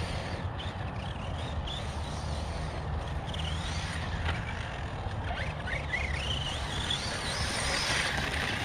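The Hobbywing 2250kv brushless motor of a Losi 3XL-E RC truck whining as the truck drives on dirt, its pitch rising and falling with speed and climbing about six seconds in, over a steady low rumble.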